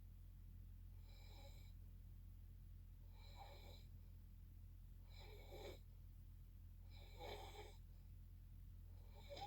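Soft snoring from a sleeper, one faint breath sound about every two seconds, over a steady low hum.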